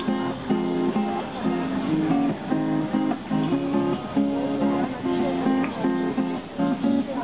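Acoustic guitar strummed in rhythmic chords.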